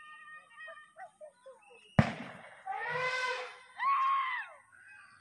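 A single sharp bang about two seconds in, then two loud drawn-out shouts that rise and fall in pitch: men yelling to chase off a herd of wild elephants.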